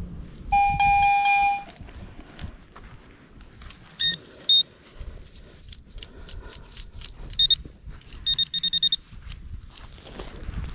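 Metal detector giving target tones: one long low tone about half a second in, then short high-pitched beeps around four seconds in, again at about seven and a half seconds, and a quick run of beeps near nine seconds.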